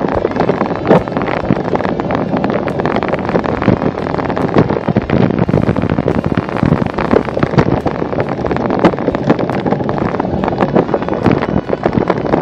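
Wind buffeting the microphone while riding a cyclocross bike over rough grass and dirt: a continuous rumble of tyres and wind, broken by frequent knocks and rattles as the bike jolts over bumps.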